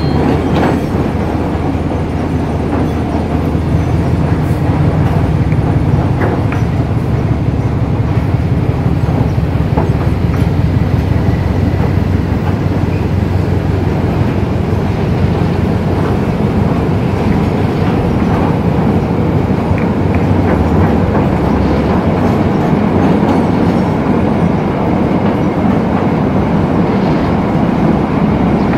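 Passenger train coaches rolling slowly across a steel lattice-truss railway bridge, under a slow-speed limit for track work: a steady, loud rumble of steel wheels on the rails and bridge, with faint occasional clicks.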